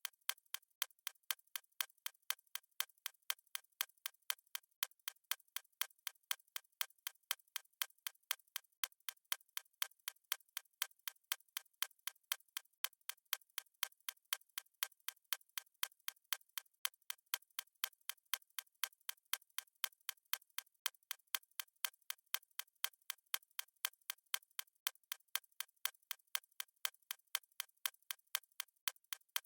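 Clock ticking sound effect: sharp, evenly spaced ticks at a steady, unbroken rate.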